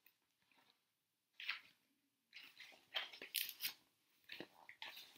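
Pages of a paperback picture book being opened and turned by hand: a few faint, short paper rustles, the loudest about three seconds in.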